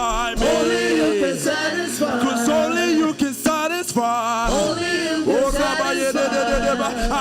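Live gospel worship singing: a male voice sings a slow worship song, holding long notes with vibrato, over soft backing music.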